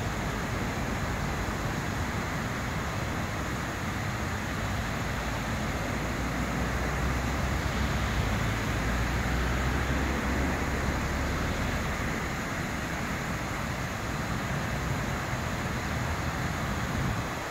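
Steady hiss and splash of a large fountain's water jets falling into its basin, over a low rumble of road traffic that swells for a few seconds midway.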